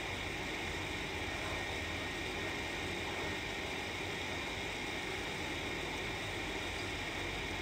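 Steady, even background hiss with a low hum, unchanging throughout.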